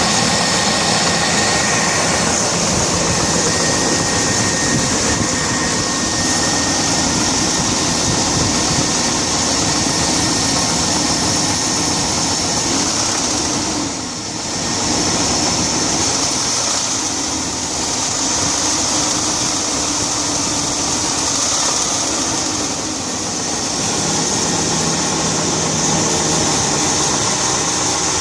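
1999 GMC Yukon's engine running with a knock, which the owner fears means the engine is shot.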